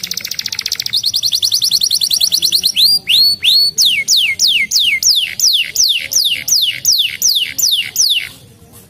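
Canary singing: a very fast, high trill, then a few rising notes and a run of falling whistled notes, about two a second, stopping near the end.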